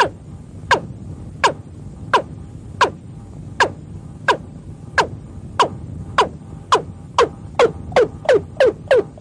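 Watercock (cúm núm) calling: a run of short notes, each dropping sharply in pitch, at first about one every 0.7 seconds, then quickening to about three a second near the end, over a low steady hum.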